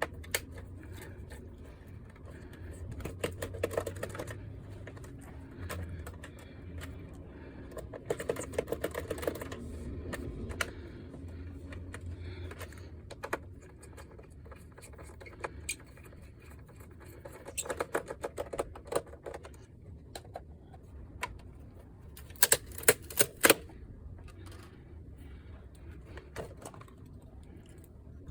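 Bursts of rapid clicking and tapping from the plastic parts of a PlayStation 5 console being handled and taken apart, in four clusters over a faint low hum.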